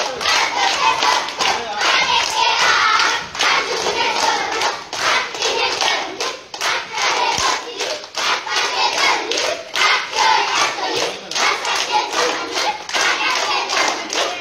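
A group of children clapping their hands in a steady rhythm while chanting a game song together.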